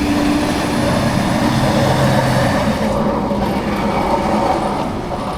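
Heavy snow-clearing machinery running loudly: a steady engine noise with a few held tones that shift slightly in pitch.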